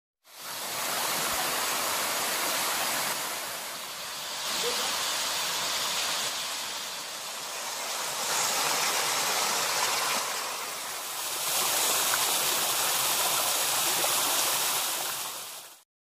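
Water pouring and splashing over small stepped waterfall cascades, a steady rushing that swells and dips in level every few seconds. It fades in at the start and cuts off suddenly near the end.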